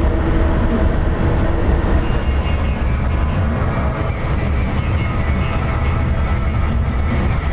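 Steady low rumble of engine and road noise heard from inside a moving tour bus.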